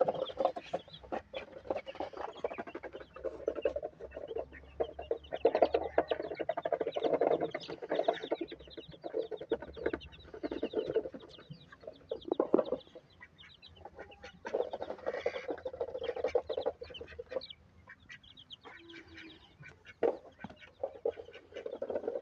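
Chickens clucking in stretches of quick, repeated short calls, broken by a few brief pauses.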